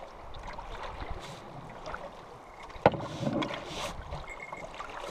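Wooden canoe being paddled down a fast river: water washing and hissing along the hull with the swish of paddle strokes, and one sharp knock about three seconds in.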